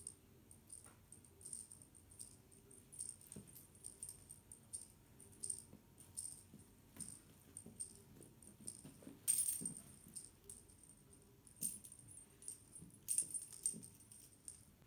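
A cat wand toy jingling and rattling in quick, irregular bursts as it is flicked about and batted, with soft thumps from a Siamese cat pouncing on a rug; the busiest jingling comes about nine seconds in and again near the end.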